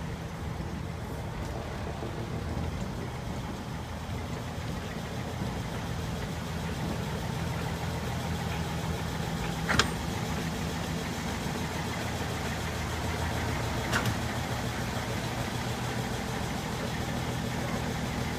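Small locomotive's engine running steadily at low revs as the engine rolls slowly past, growing a little louder as it comes close. Two sharp clanks about four seconds apart near the middle.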